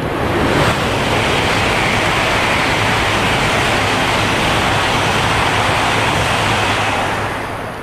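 E5-series Shinkansen bullet train passing through a station at speed without stopping: a loud, steady rush of air and wheel noise that builds over the first second and dies away near the end.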